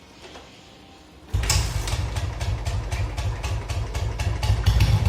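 Royal Enfield Bullet 350's single-cylinder engine firing up about a second in and settling straight into a low idle: an even stream of thumps. The idle is set low, just above where the engine would stall, for a deeper thump.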